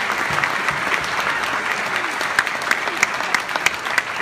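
Audience applauding, with many hands clapping together and single sharp claps standing out more toward the end.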